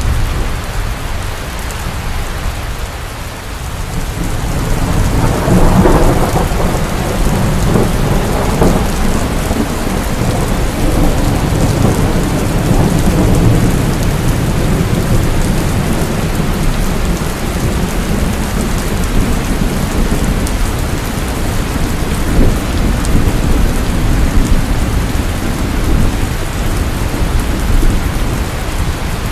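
Heavy rain pouring steadily, with a long rolling rumble of thunder that swells about five seconds in and slowly eases off.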